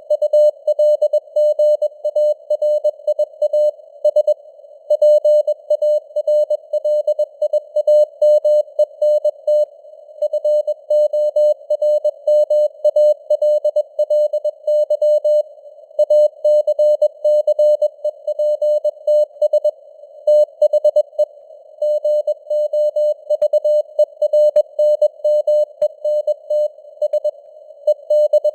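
Computer-generated Morse code (CW) at 21 words per minute: a single steady mid-pitched tone keyed on and off in dots and dashes, over a narrow band of simulated radio hiss, as heard through a receiver's CW filter. A few faint clicks of static come in the last few seconds.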